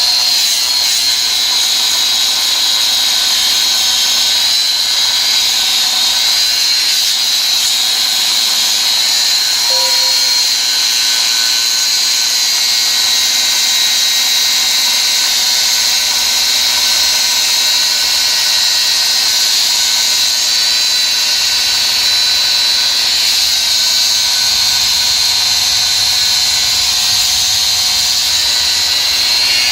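Cordless angle grinder cutting into a steel rail under load: a loud, steady, high-pitched whine with grinding noise.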